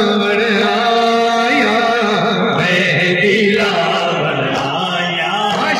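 Men chanting a noha, the Shia lament, through microphones, in long held and sliding notes.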